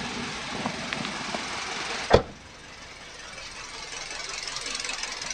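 Kia Sonet 1.2 petrol engine idling roughly with a misfire, which the mechanic traces to a faulty ignition coil. A single sharp thump about two seconds in.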